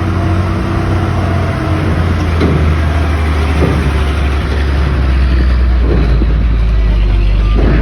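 Heavy truck's diesel engine running, with a steady low hum that deepens and gets slightly louder about five seconds in as the truck pulls under load.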